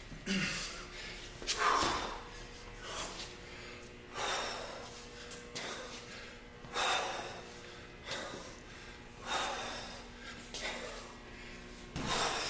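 A man breathing hard under exertion, with sharp, noisy exhalations in a steady rhythm of about one every second and a half.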